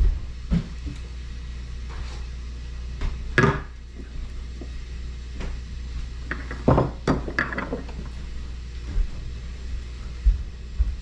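Knocks and clatters of household objects being handled and set down, loudest about three and a half seconds in and in a quick cluster around seven seconds in, over a steady low hum.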